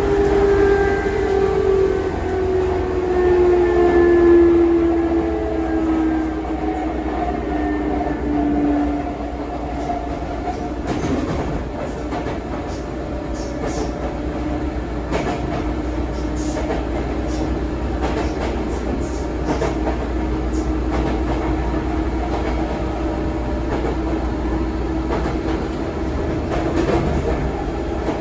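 Sotetsu 9000 series electric commuter train running, heard from inside a passenger car. A traction motor whine falls in pitch over the first several seconds, then holds steady over a constant low rumble. From about ten seconds in, the wheels click over rail joints.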